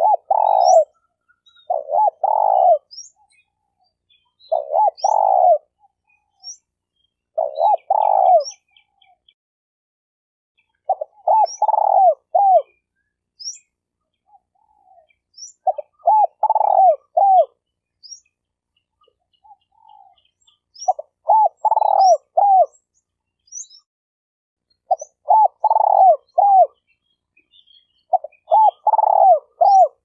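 Spotted dove cooing: a phrase of three or four low notes, repeated about every three to four seconds. Faint high chirps from small birds sound between the phrases.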